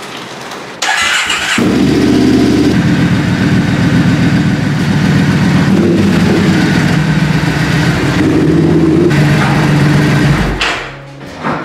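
Triumph Bonneville's parallel-twin engine cranked on the electric starter, catching after about a second and then running steadily, with slight rises in pitch. The engine sound cuts off about ten seconds in, and a couple of light metallic knocks follow near the end.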